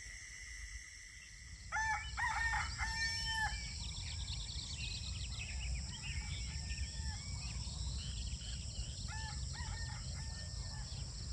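A rooster crowing in bouts, starting about two seconds in and again near the end, over small birds chirping and a steady high insect drone.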